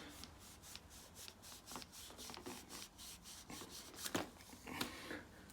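Hands wiping and rubbing collected magnetite sludge off the magnets of a magnetic central-heating filter: a run of short, irregular rubbing strokes, with a couple of louder clicks near the end.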